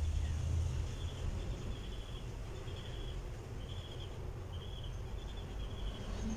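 Background ambience: a steady low rumble with short, high chirps repeating about once or twice a second.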